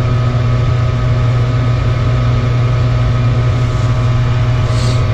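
Lennox ML193 gas furnace running: a steady mechanical hum with a strong low drone and a few fixed higher tones.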